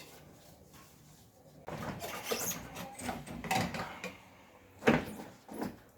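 Scraping and rubbing as a viscous fan and its plastic shroud are worked out of a pickup's engine bay past the radiator. About five seconds in there is a sharp knock, and a lighter one just after.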